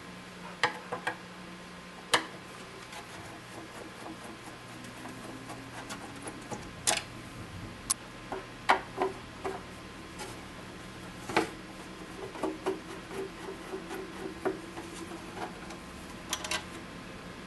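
Scattered clicks, taps and knocks of hands and a tool working the fasteners of a radio speaker and handling it in its cabinet, a few sharp knocks louder than the rest, over a low steady hum.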